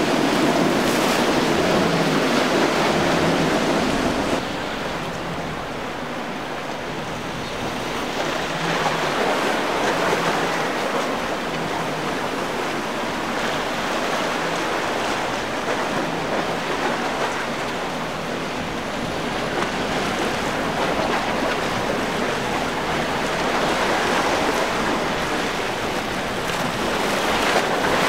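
Choppy seawater rushing and splashing with wind on the microphone, and a boat motor running under it. It is louder for the first four seconds, then drops suddenly to a steadier wash of waves.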